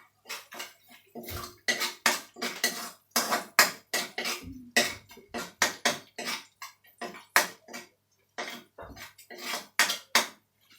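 Utensil clinking and scraping against a pot or bowl while cooking, in quick irregular strokes with a few short pauses.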